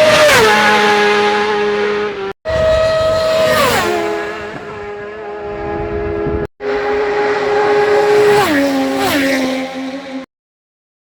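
Supersport racing motorcycles passing flat out, each engine's high-pitched note dropping sharply in pitch as it goes by. The sound comes in three short stretches, broken by two abrupt cuts, and stops abruptly near the end.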